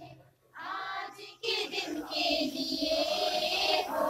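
A group of voices singing a Hindi welcome song together. After a short phrase they hold longer notes.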